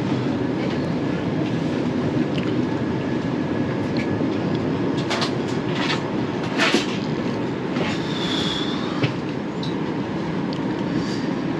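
Steady rumbling cabin noise inside an airliner during boarding, with a few sharp clicks and knocks about five to seven seconds in.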